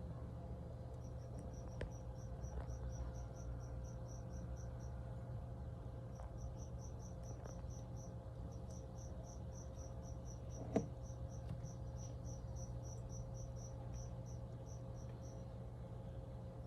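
A cricket chirping in a steady run of short high pulses, about four a second, pausing briefly now and then, over a constant low hum. A single sharp tap sounds about two-thirds of the way through.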